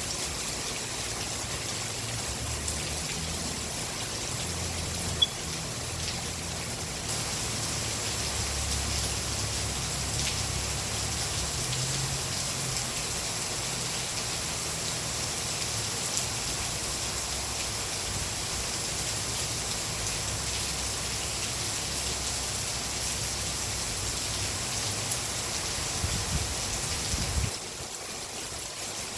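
Steady rain falling, an even dense hiss, with a low rumble underneath that cuts off suddenly a couple of seconds before the end. A single sharp click about five seconds in.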